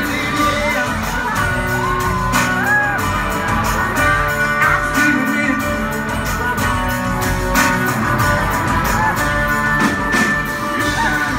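Live country-rock band playing: electric guitars, bass and drum kit, loud and steady. A voice sings over it during the first few seconds, then the band plays on without vocals.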